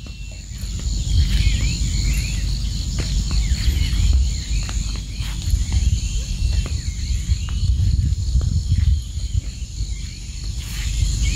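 A steady, high-pitched chorus of insects trilling, over a louder low rumble that rises and falls, with scattered faint clicks.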